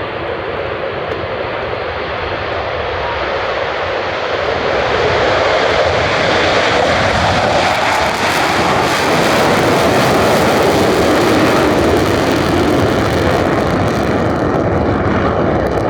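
Aircraft engine noise passing close overhead, a loud, even roar that grows louder over the first several seconds and holds.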